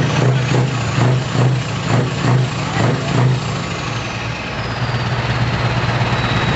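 Scania R620's V8 diesel engine running, its note swelling and dropping about twice a second for the first three seconds, then settling into a steady idle while a thin high whine slowly falls in pitch.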